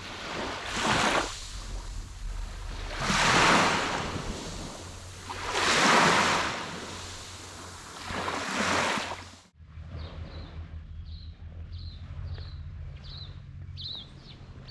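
Four swelling whooshes of noise, each rising and falling over about a second and spaced about two and a half seconds apart. They cut off suddenly about nine and a half seconds in, giving way to a low steady hum with short high chirps about twice a second.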